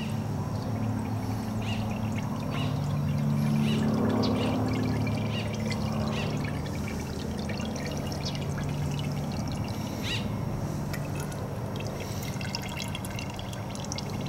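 Fork oil poured steadily from a measuring cylinder into the open top of an upright motorcycle fork tube from a Yamaha Majesty YP400 scooter, with a continuous pouring sound that swells slightly a few seconds in.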